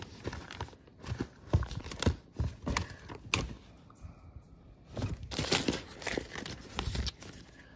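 Papers and file folders rustling and knocking as they are flipped through and shifted while searching for a missing folder, in irregular handling noises with a short lull about halfway through.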